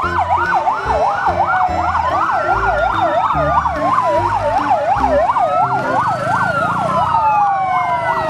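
Electronic fire-engine siren: a fast up-and-down wail layered with a slower rising and falling wail, over low pulsing tones.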